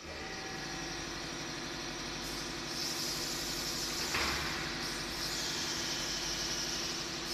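Pneumatic frame assembly clamp's air system running: a steady motor hum with hissing air, and a short burst of released air about four seconds in.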